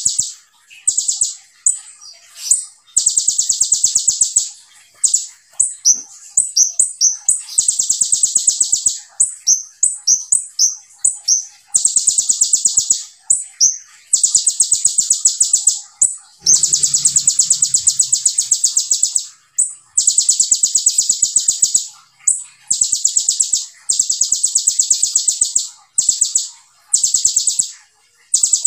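A caged kolibri ninja sunbird singing: long, rapid-fire, high-pitched buzzing trills of a second or two each, one after another with short gaps, mixed with quick chirps.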